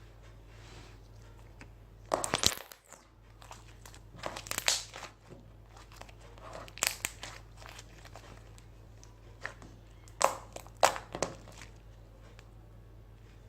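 Homemade slime being squished and pulled apart by hand, in four short noisy spells of squelching and crackling, the last near the end the longest. The slime is slightly sticky.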